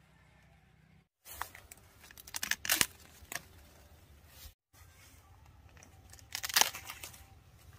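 Ears of corn being pulled and snapped off their stalks by hand, with husks and leaves crackling and tearing in two bursts of quick crackles, the louder one near the end.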